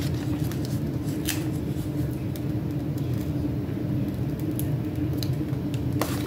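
Sticker sheet being flexed and handled, giving short scattered crinkles and clicks, over a steady low hum.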